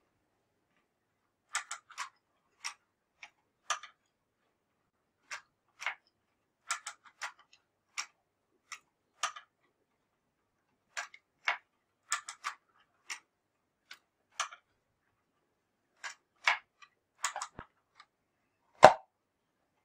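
Hand-cranked wooden automaton's cams, shafts and figures clicking and knocking as the crank turns, in uneven sharp wooden clicks at under two a second. One much louder knock comes near the end.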